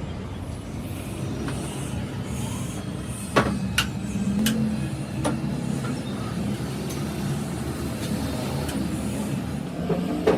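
Steady low mechanical rumble, with a few sharp knocks about three and a half seconds in, again just before four seconds, and once more past five seconds.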